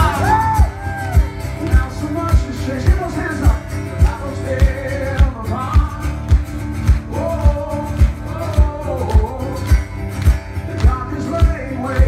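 Male voice singing a slow song live over a strummed acoustic guitar, with a steady low beat about every half second beneath.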